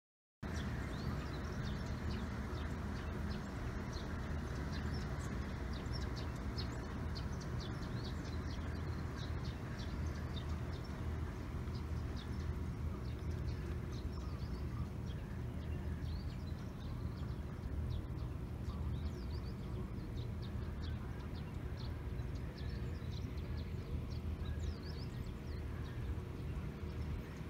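Outdoor ambience by a pond: a steady low rumble with many short, high chirps of small birds scattered throughout. It starts out of silence about half a second in.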